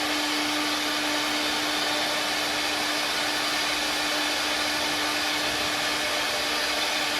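Four-head CNC wood carving machine running steadily: a constant hiss with one steady hum, unchanging throughout.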